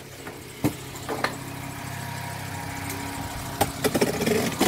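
2008 Volkswagen Rabbit's 2.5-litre five-cylinder engine idling steadily while it warms up, with a few sharp knocks and clicks of handling over it, several near the end.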